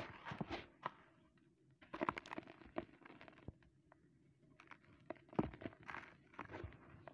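A dry, gritty concrete-style plate being broken and crumbled by hand, in irregular bursts of crunching and crackling with grit falling into loose powder. The sharpest crack comes about five seconds in.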